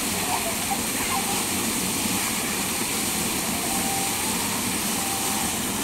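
Mushroom-shaped splash-pool fountain shooting a column of water that falls and splashes steadily onto the umbrella and the pool, with faint distant voices.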